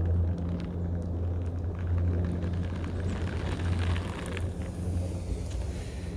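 Roller skate wheels rolling over pavement: a steady low rumble with scattered small clicks and ticks.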